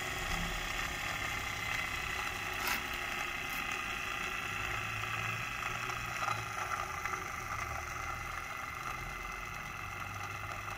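Electric motor of a bench chainsaw-chain sharpening grinder running steadily with a whine, with two light clicks about three seconds in.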